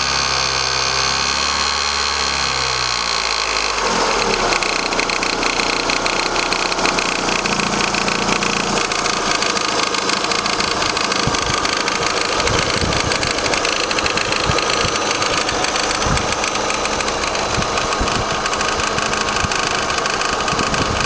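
Vauxhall Astra mk4 1.6 16v Ecotec engine idling with a rapid tapping through it, plus a vibration heard at the belt-driven pulleys. Heavier irregular knocks join from about halfway. The owner calls it a weird tapping/vibration noise and does not know the cause.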